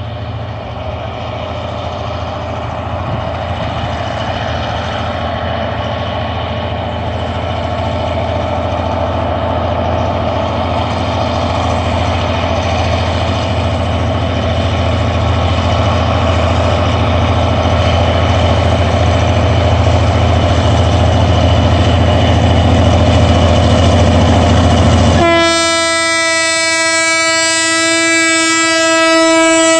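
EMD G26CW-2 diesel-electric locomotive working a freight train up a grade, its EMD 16-645E V16 two-stroke diesel running under load and growing steadily louder as it approaches. About 25 seconds in, its air horn sounds one long blast of about four seconds.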